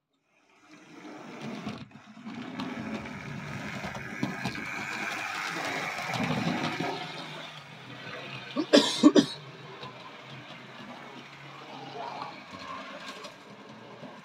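Model railway locomotive running along the track: a steady rushing whirr of its electric motor and wheels, with a quick cluster of sharp clicks about nine seconds in.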